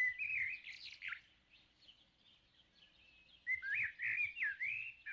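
Songbird singing: runs of clear, swooping whistled notes, a busy phrase in the first second and another starting about three and a half seconds in, with softer notes between.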